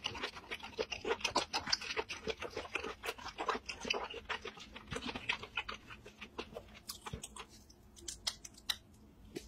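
Close-miked eating sounds: chewing saucy seafood, a dense run of wet clicks and smacks that thins out to a few scattered clicks after about six seconds.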